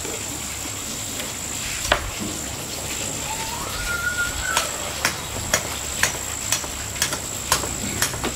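Insects, likely crickets, trilling steadily on one high pitch. A single sharp knock about two seconds in, then from about halfway sharp knocks repeat about twice a second.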